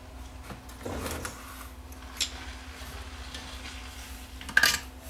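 Workbench handling noises as tools and wires are moved around a radio chassis: a short rustle about a second in, a small click, and a sharper clatter near the end, over a faint steady hum.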